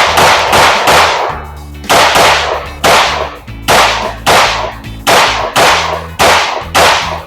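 Factory-compensated Glock 19C Gen 4 9mm pistol fired in a steady string of about a dozen shots, roughly two a second with a couple of short pauses, each shot sharp and followed by a brief ringing tail. Background music plays underneath.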